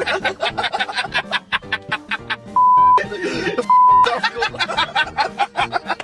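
Young men laughing hard in rapid cackling bursts inside a car. Two short steady censor bleeps cut in a little before halfway.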